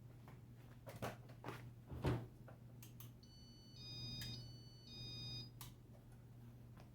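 A faint steady electrical hum with a few sharp clicks, then from about three seconds in a short electronic tune of high beeping tones alternating between pitches, lasting a little over two seconds.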